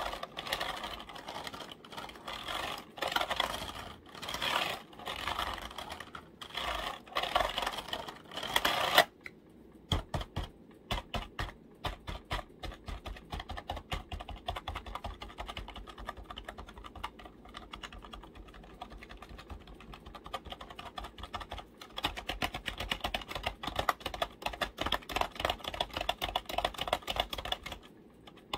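Fast, continuous tapping and clicking on computer keyboard keys. For the first nine seconds or so the taps come in louder, fuller clusters. Then they change abruptly to quick, lighter clicks, which get louder again near the end.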